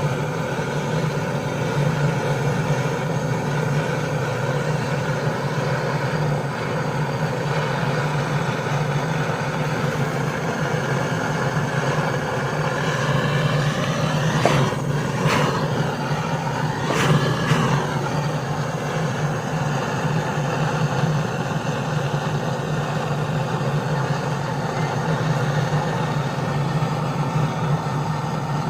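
A machine's motor running with a steady low hum. Midway there is a short whine that rises and falls in pitch.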